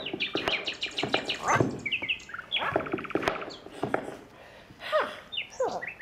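A mix of bird calls: fast trills, short chirps and several whistles that slide downward, overlapping one another and thinning out for a moment about two-thirds of the way through.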